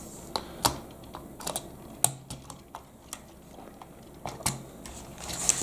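Irregular sharp plastic clicks and taps of Lego pieces as large wheels are pressed onto the axles of a Lego City Forest Tractor and the model is handled. There are about a dozen clicks, unevenly spaced, with louder ones just under a second in, about two seconds in and about four and a half seconds in.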